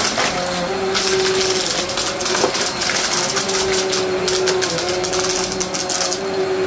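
Vacmaster upright vacuum cleaner running on carpet, its motor holding a steady hum while small debris of a mess-test mix crackles and clicks as it is sucked up. The crunching comes in clusters as the vacuum is pushed back and forth.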